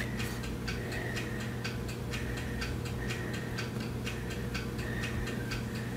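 Rapid, even soft ticking, about seven a second, from a cat pressing and rubbing its fur against the phone's microphone, over a low steady hum.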